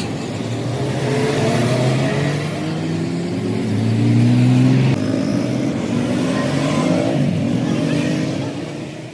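Motor vehicle engine running, its pitch rising slowly as it speeds up, with an abrupt change in the sound about five seconds in.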